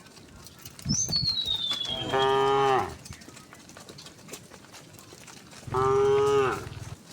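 Cows mooing: two moos, each a little under a second long and dropping in pitch at the end, about three and a half seconds apart.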